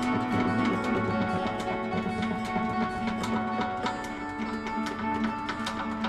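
Instrumental progressive-metal music: sustained pitched tones and plucked-string notes over a quick, even run of light percussion hits.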